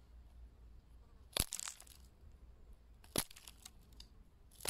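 Three sharp crunching cracks, about a second and a half apart, the first two trailing a short crackle.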